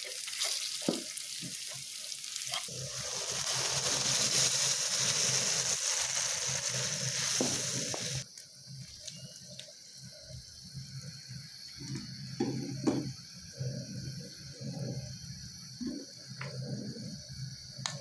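Vegetables and tomato paste sizzling in a hot frying pan as they are stirred with a wooden spoon; about three seconds in the sizzle swells into a loud hiss as water goes into the pan, then stops abruptly about eight seconds in. After that the sauce is quieter, with scattered knocks and taps as cauliflower florets are tipped in and stirred.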